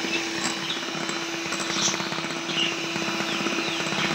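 Electric hand mixer running steadily, its beaters whisking runny cake batter in a bowl: a constant motor hum over the whir and swish of the batter.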